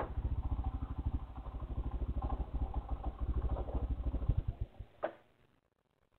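Motorcycle engine ticking over with an even, rapid pulse as the bike creeps into a parking spot. It is shut off about three-quarters of the way through, followed by a single click.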